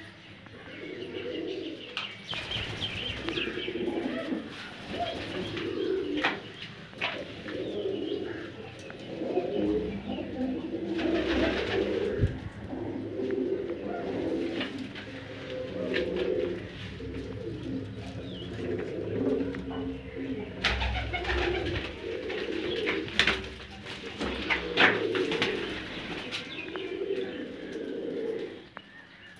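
Punjabi desi highflyer pigeons cooing over and over, overlapping low warbling calls, with sharp clicks and rustles now and then.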